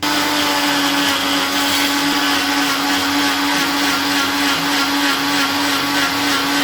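Electric kitchen mixer grinder running at a steady speed, wet-grinding herb leaves with rock salt and a little water into a paste. It starts abruptly, with a steady motor hum under the whirring noise.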